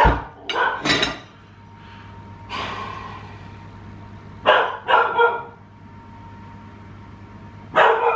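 A pet dog barking in short bursts: three quick barks, then three more about four seconds later, and one more near the end.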